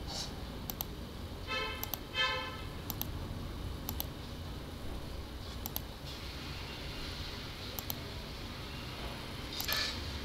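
Computer mouse clicking, a sharp click every second or two, as objects are placed one after another in drawing software; a steady low hum runs underneath. About one and a half and two seconds in come two short humming tones.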